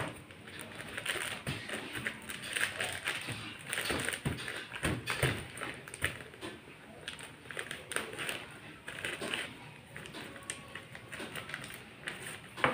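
Plastic packet crinkling and rustling in irregular clicks and crackles as it is handled and snipped open with scissors.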